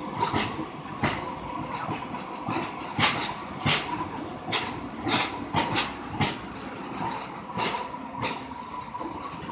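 Two-car Breda LRV2/LRV3 light rail train rolling slowly past, its wheels knocking irregularly on the track over a steady hum.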